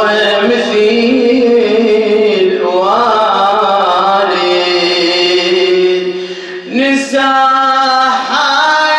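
A solo male radood chanting a slow Arabic elegy, holding long, wavering melismatic notes. One long phrase runs until a short breath near the end, and the next phrase begins right after.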